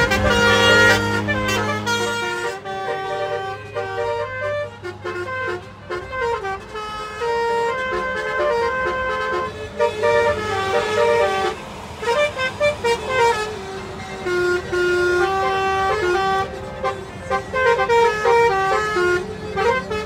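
Basuri musical car horn playing a tune: a quick run of clear pitched notes stepping up and down, with a steady low road and engine hum under the first couple of seconds.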